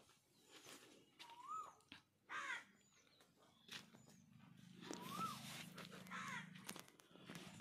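Faint birdsong: two rising-and-falling whistles, two short harsh calls and a few brief high chirps. A low steady hum runs underneath in the second half.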